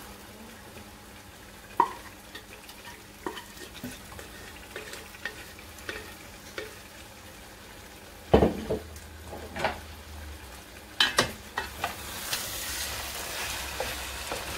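Cooked duck meat being turned with a wooden spatula in masala frying in an aluminium pot: a low sizzle under scattered scrapes and clinks, with one ringing metal clink about two seconds in and a loud knock about eight seconds in. The sizzle grows louder near the end.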